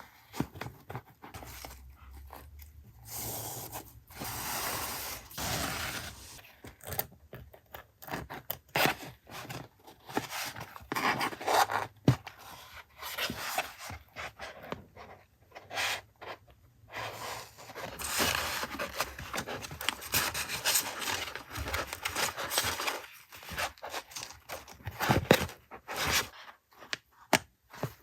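Paper and plastic packaging being handled and opened by hand: irregular rustling, scraping and tearing, with sharp taps and clicks in between.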